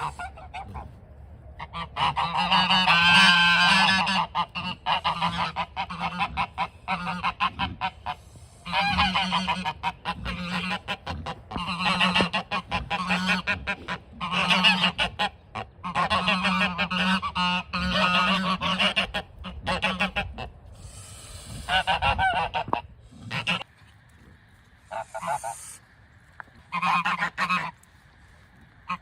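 A flock of geese honking in a chorus, many loud overlapping calls at once for most of the time, thinning to a few separate honks in the last several seconds.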